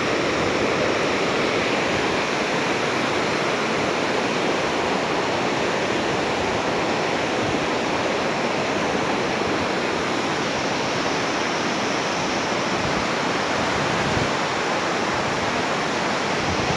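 River rapids rushing over rocks: a steady, loud whitewater rush.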